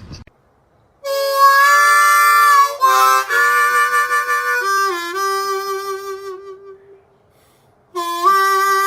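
Harmonica playing held chords, several in a row from about a second in, stepping to new notes a few times. It stops, and after a short pause one more chord starts near the end.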